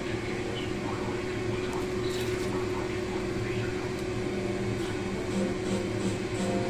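A steady machine hum with one constant mid-pitched tone and a low drone beneath it.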